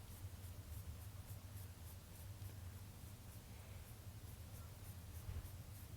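Faint scratchy strokes of a paintbrush on canvas, applying acrylic paint in quick repeated dabs, over a low steady hum.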